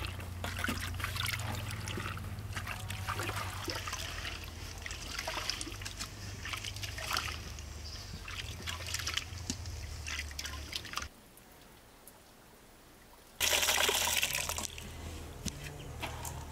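Hands squeezing and mashing rosehips in water: wet squelching and sloshing. After a short lull, about three-quarters of the way through, comes a brief, much louder rush of splashing liquid, and then the squelching goes on.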